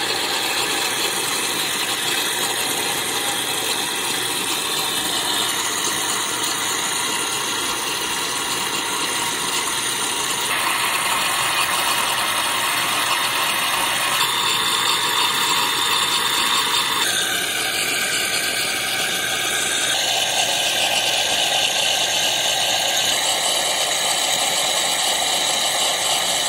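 Mr. Coffee One-Touch CoffeeHouse espresso machine running its pump and pushing hot water and steam through the frother tube into a cup, a steady hiss that changes tone every few seconds. This is the first-use flush of the frothing circuit.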